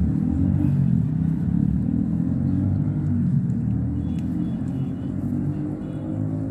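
A steady low rumble, fairly loud throughout, with faint short high chirps in the second half.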